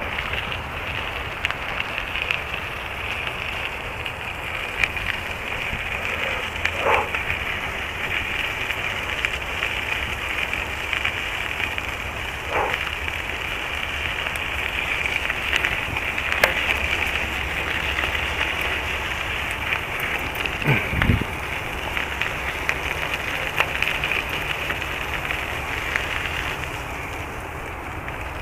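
Crackly handling noise and footsteps of someone walking along a dirt woodland trail with a handheld camera. A steady high hiss runs underneath.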